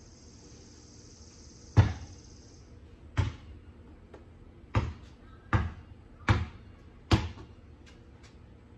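Basketball being dribbled: six sharp bounces, the first about two seconds in, then slow, with the last few coming quicker, a little under a second apart, each with a short ringing tail.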